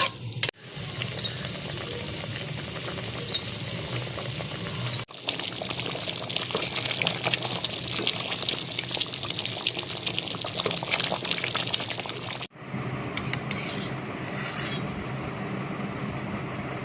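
Kitchen sounds of food being stirred and scraped with a utensil in a pot or bowl, a steady scratchy rasping broken by sudden cuts between short clips.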